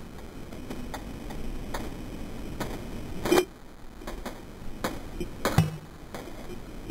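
A handful of sharp clicks, irregularly spaced over several seconds, from a toy gun's trigger and mechanism being worked; two of them are louder.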